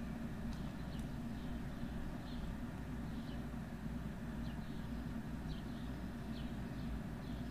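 Outdoor ambience: a steady low hum under faint, short bird chirps that come every half second to a second.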